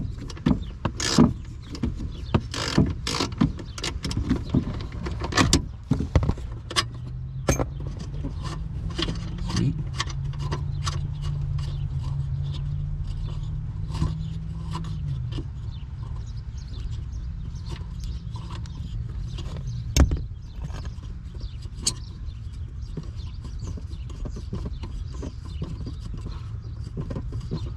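Irregular clicks and knocks of a hand tool and metal parts being worked under a pickup truck's dashboard, thickest in the first several seconds, with one sharper knock about twenty seconds in. A steady low hum runs underneath.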